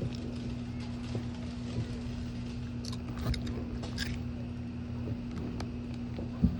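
A steady low mechanical hum, with faint scattered pops and crackles of distant fireworks, a few of them about three to four seconds in, and one sharper thump near the end.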